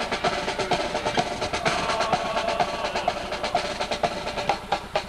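Marching band playing, sousaphones and trombones sounding held notes over a quick, steady drum beat.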